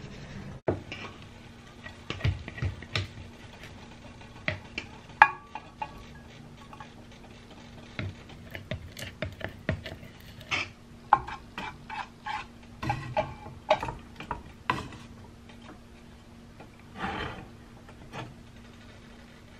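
A wooden spoon scraping and knocking inside a plastic jar of coconut oil as solid oil is scooped out, then scraping it around a nonstick frying pan: scattered, irregular light clicks and scrapes.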